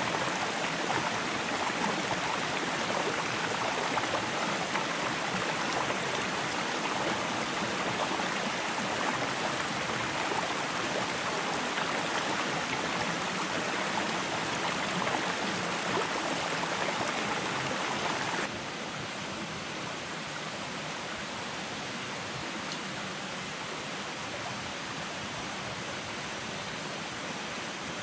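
Forest stream running, a steady rush of water. About two-thirds of the way in it drops suddenly to a slightly quieter, duller rush.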